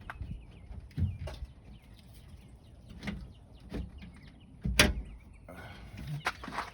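Scattered knocks and clicks of parts and tools being handled on a 2001 Toyota Sequoia's rear lift door as it is screwed back together. The loudest, sharpest knock comes near the middle, followed near the end by a short scraping rustle.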